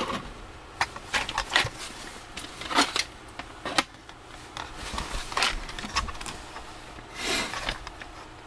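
Cardboard box handled in the hands: scattered taps, clicks and rustles of the cardboard and its open flaps, with a longer scraping rustle about seven seconds in.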